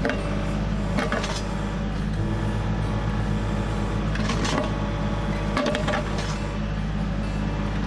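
Kubota compact tractor's diesel engine running steadily while the backhoe works, with several sharp knocks as the bucket handles rocks in the creek bed.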